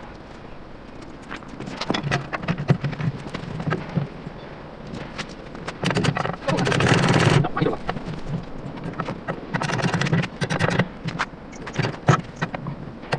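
Irregular knocks, taps and clatter of hand tools and metal parts being worked on an antique hand-powered washing machine, with a longer harsh noise lasting about a second and a half around six seconds in.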